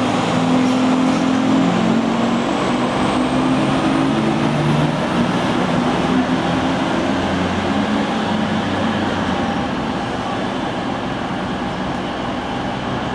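Diesel railcars at a station: a Stadler RegioShuttle's underfloor diesel engine running as the railcar pulls away, its engine note dying out after about five seconds, over a steady rolling rumble from another diesel train coming in that slowly fades.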